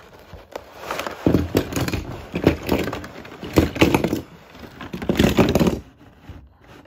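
Clear plastic blister tray of a toy-car multipack crackling and crinkling as it is handled and pulled open, in several bursts that stop near the end.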